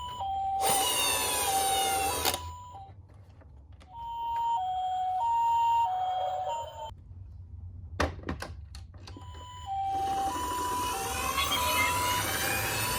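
A toy ambulance's electronic two-tone siren: the Japanese-style 'pee-poh', a high and a lower tone taking turns about every half second. It plays in several stretches, with a rushing noise under parts of it, and stops briefly just past the middle, where a few clicks are heard.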